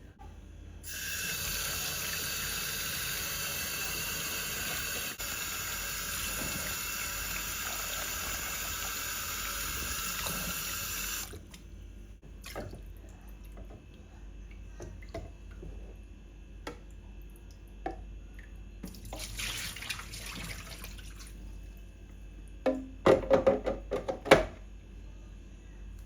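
Water tap running into a sink for about ten seconds, then shut off suddenly. A few light knocks follow, a briefer run of water, and near the end a short, loud clatter of hard objects.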